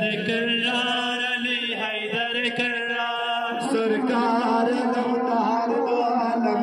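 A young man's voice chanting a Shia Muharram lament (noha) into a microphone, in a continuous melodic line with gliding pitch.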